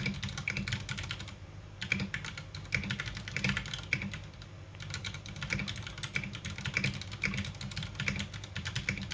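Ducky One 2 SF mechanical keyboard with linear Cherry MX Silver switches being typed on quickly, a rapid patter of key clicks with two short pauses, about a second and a half in and again around four seconds in. Picked up by a smartphone microphone.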